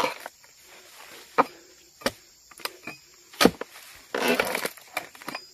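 Pole-mounted harvesting chisel jabbing into the woody base of an oil palm fruit bunch: about five sharp separate chops in the first three and a half seconds, then a short rasping crunch about four seconds in as the blade works through the stalk.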